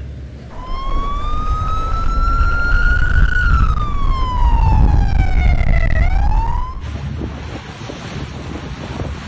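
Police boat siren wailing: one slow rise and fall in pitch, then a quick upswing before it cuts off about seven seconds in. A heavy wind rumble runs underneath, and after the siren stops only wind and rushing water are left.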